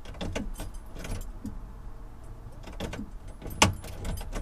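Ignition key of a VW T5 van being turned on and off to prime the diesel fuel system after a fuel filter change: a series of key clicks and key-ring jangling, the sharpest click about three and a half seconds in, over a low steady hum.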